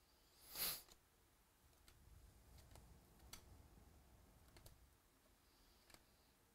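Baseball trading cards being handled and flipped through in the hands: a short swish about half a second in, then scattered faint clicks and ticks as card edges slide past one another, against near silence.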